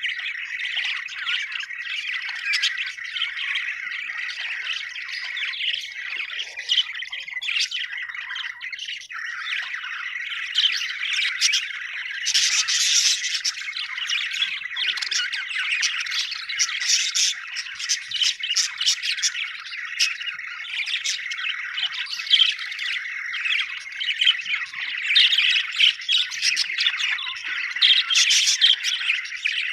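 Several budgerigars chirping together, a dense stream of overlapping chirps that never pauses and swells louder at times.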